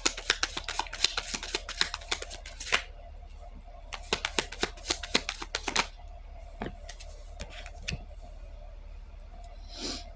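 A deck of reading cards being shuffled by hand: two runs of quick riffling clicks, then a few separate card snaps and a soft slide near the end.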